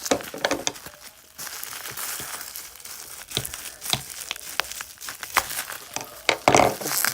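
Plastic toy packaging being crinkled and torn open by hand, with irregular crackling and sharp clicks, loudest near the end.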